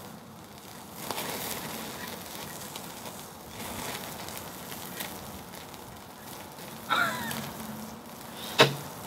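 Steak sizzling and fat crackling over a small ceramic tabletop charcoal grill as the meat is turned with metal tongs. A short high sound comes about seven seconds in, and a sharp click near the end.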